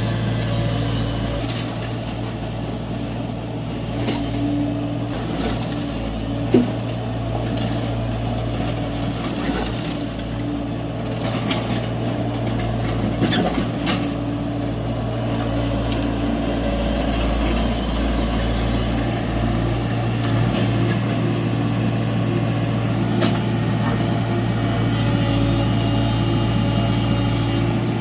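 Tata Hitachi EX70 excavator's diesel engine running steadily as the machine works, with scattered knocks and clatter over it; a sharp knock about six and a half seconds in is the loudest.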